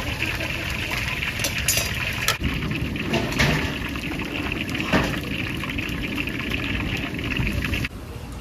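Cooking at a street-food stall: a steady hiss of liquid, as from frying or pouring, with several sharp clinks. It cuts off abruptly near the end.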